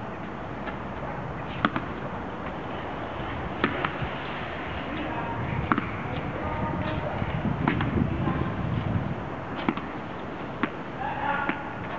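Tennis ball striking and bouncing on the concrete of an underpass: a handful of sharp knocks several seconds apart, over a steady background noise.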